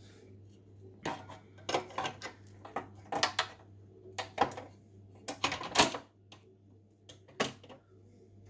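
Irregular metallic clicks and clacks of a replacement oven door hinge being worked into its slot in the door, the loudest knock about six seconds in.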